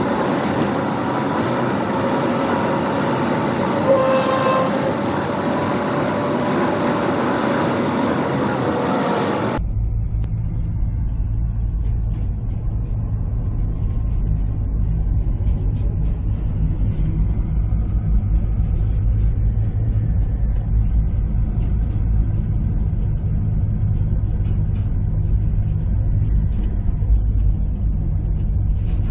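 Road traffic noise with a brief horn toot about four seconds in. At about ten seconds it cuts to a steady low road rumble heard from inside a moving vehicle's cabin.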